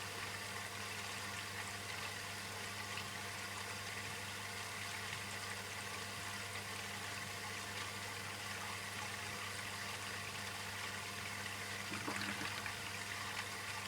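Bosch dishwasher filling with water: a steady rush of water running into the sump chamber, over a low steady hum.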